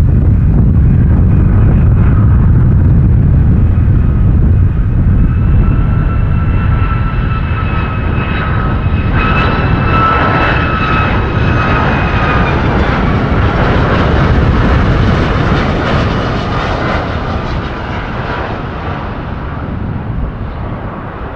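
Boeing 757-200 on landing approach, its Rolls-Royce RB211 turbofans giving a deep rumble with a steady high whine. The whine builds from a couple of seconds in, is strongest about halfway through, then fades as the aircraft passes and flares over the runway.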